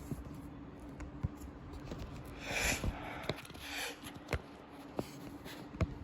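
Handling noise from fiddling with the phone camera: scattered small clicks and knocks, with two short rustles about two and a half and four seconds in.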